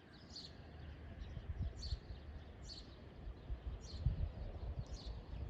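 Small birds chirping outdoors: short high calls repeated about once a second, over a low, uneven rumble.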